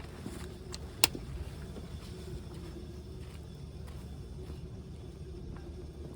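A vehicle engine idling with a steady low rumble and hum; one sharp click about a second in.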